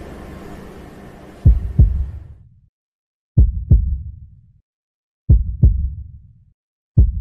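Heartbeat sound effect: deep double thumps, lub-dub, repeating about every two seconds, each pair trailing off in a short low rumble with silence between. A low steady ambient bed fades out just after the first beat.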